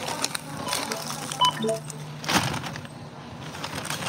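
Groceries being handled and bagged at a supermarket self-checkout: scattered knocks, crackling and rustling, loudest a little past two seconds in. A short electronic beep sounds about a second and a half in.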